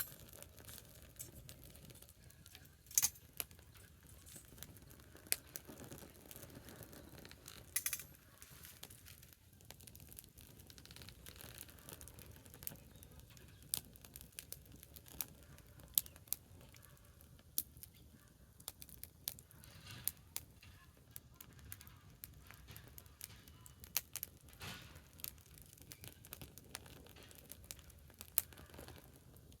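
Wood bonfire crackling, with irregular sharp pops from the burning wood, a handful louder than the rest.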